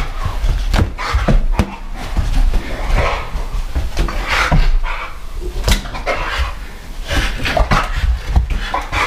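An Old English Bulldog and a French Bulldog playing with a balloon: irregular knocks and thumps as they jump at it and scramble, with the dogs' breathy snuffling in between.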